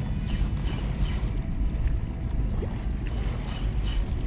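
Wind buffeting the microphone in a steady, uneven low rumble, with small waves lapping at the water's edge.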